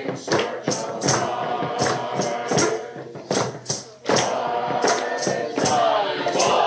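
A choir singing a song to a beat of sharp percussion strikes, about two or three a second. The sound thins briefly about four seconds in, then the voices come back louder and fuller.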